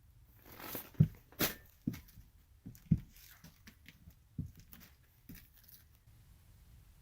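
Irregular knocks and rustling: about six sharp knocks spread over five seconds, the loudest about a second in, with a short rustle just before it.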